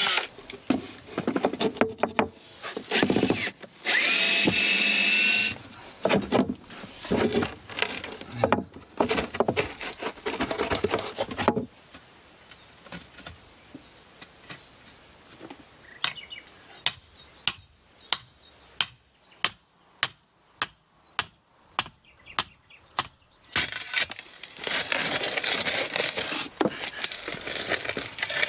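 Cordless drill running in short bursts as screws are driven out of old wooden deck boards, one run spinning up in pitch. Later a steady series of sharp strikes, about two a second, from a metal digging bar worked into stony ground, then a spade scraping into dry earth and stones near the end.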